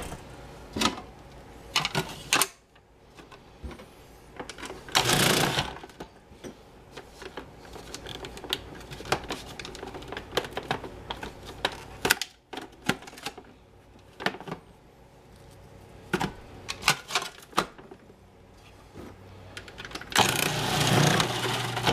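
Cuisinart food processor chopping shredded cabbage, its motor run in short pulses, with sharp plastic clicks and knocks from the bowl and lid between. The loudest runs come about five seconds in and near the end.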